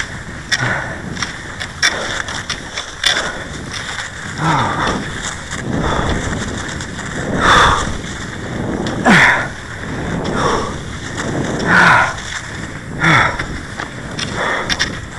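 Cross-country skis gliding and scraping over a groomed snow track, with a steady rhythm of stride surges about every second and a half.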